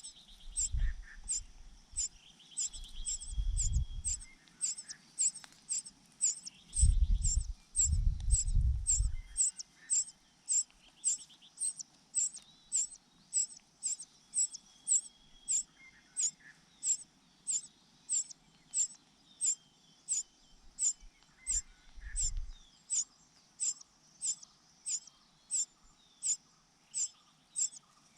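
Cuckoo chick giving a high, sharp, wailing begging call over and over, a little more than one and a half calls a second, without a break. Fainter chirps from other small birds and a few low rumbling bumps come in at times.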